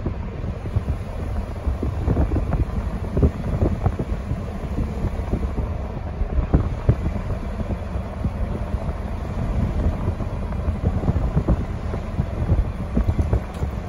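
A car driving along: a steady low road rumble, with wind buffeting the microphone in irregular gusts.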